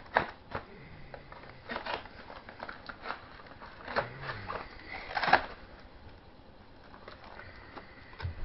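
Cardboard and plastic packaging of Nerf darts being cut and pried open with a knife: irregular scrapes, rustles and clicks, the loudest about four and five seconds in.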